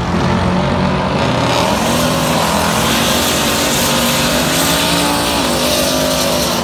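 Chevrolet Camaro doing a burnout: the engine revs up about a second in and holds high while the spinning rear tyres hiss against the pavement.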